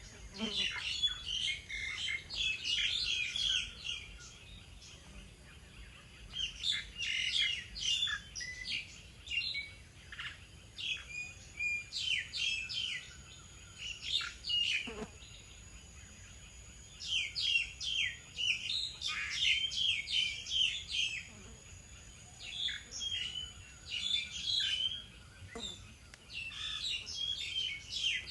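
Small birds chirping and twittering in short, busy bouts of a few seconds each, with brief pauses between bouts.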